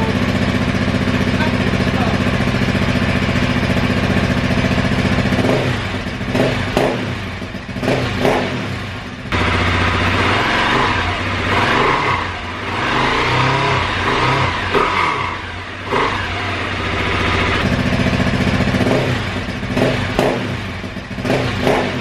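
Husqvarna 701's single-cylinder engine idling and then revved in short blips through a REMUS aftermarket exhaust. About nine seconds in, the sound cuts abruptly to the bike being revved on its standard exhaust. At about eighteen seconds it cuts back to the REMUS idling steadily, with a few more revs near the end.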